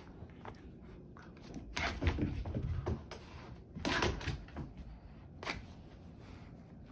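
Small dog playing with a plush toy: scattered short thumps and rustles as it grabs and carries the toy over rugs and a wooden floor, loudest about two and four seconds in.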